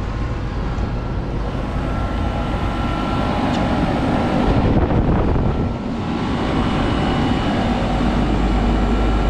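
Commercial packaged air-conditioning unit running steadily in cooling, its compressor and fans giving a constant mechanical noise with a faint steady hum.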